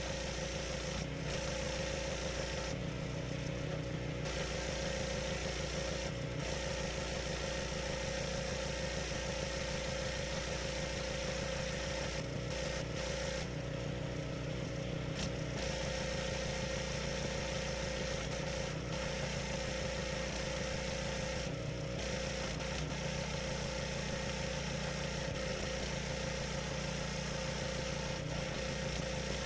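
Pressure washer's petrol engine running steadily under constant load, with a hiss of water spray over it. The hiss thins briefly twice.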